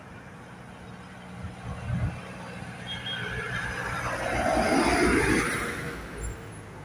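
Tractor driving past close by: its engine and tyre noise build to a peak about five seconds in, then fade as it moves away.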